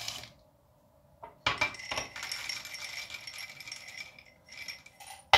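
Dry yellow roasted chickpeas (leblebi) pouring and rattling against glass for about three seconds, starting a second and a half in. A single sharp glass knock near the end is the loudest sound.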